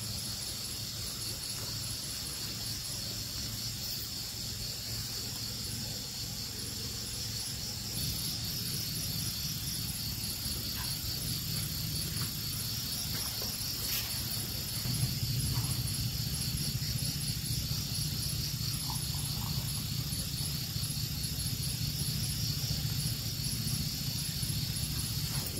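Night insects such as crickets chirping steadily in high, evenly pulsing trills, over a low steady rumble that grows louder about midway, with a few faint clicks.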